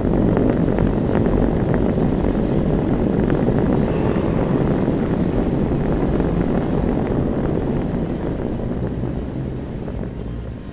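Booming sand dune: sand avalanching down the slip face under a descending 4x4 gives off a low, steady drone, mixed with the vehicle's tyres churning through the sand. It fades gradually near the end.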